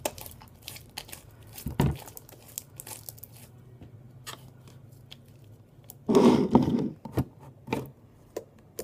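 Sticky borax-activated glue slime being kneaded and pulled by hand, giving a run of small crackles, pops and tearing sounds as it stretches and snaps. A louder squelch comes about six seconds in.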